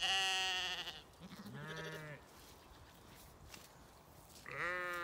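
Zwartbles sheep bleating: three separate bleats of about a second each. The second is deeper, and the third starts near the end and runs on.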